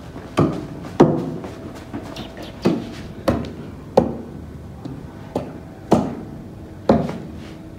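A series of sharp knocks, about eight at uneven intervals, each dying away quickly.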